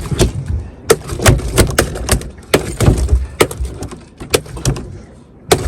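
A freshly landed tuna thrashing on the boat's deck: irregular sharp knocks and thumps of its body and tail slapping the boards, about two or three a second, easing off for a moment near the end.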